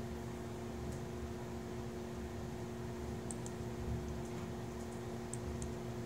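Steady room hum with two steady tones, with a few faint, scattered laptop keystrokes clicking over it.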